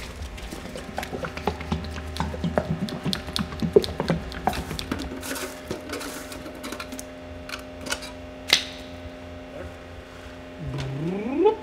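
Lid of a metal paint can being pried open with a flat tool: a run of small metal clicks and taps, then one sharp click about eight and a half seconds in. A short rising sound follows near the end.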